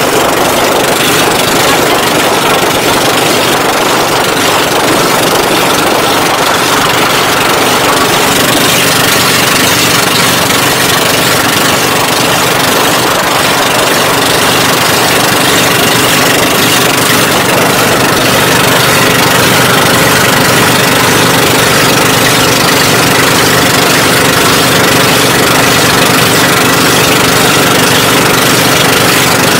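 Engine of a motorized outrigger boat (bangka) running steadily and loudly at cruising speed, heard from on board, with a continuous rush of noise underneath.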